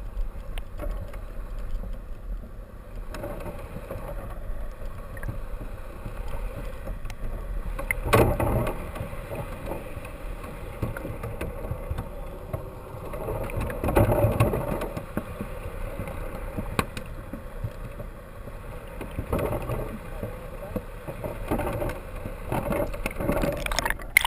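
Muffled rushing and gurgling of water heard through an underwater camera housing, with louder surges about eight and fourteen seconds in.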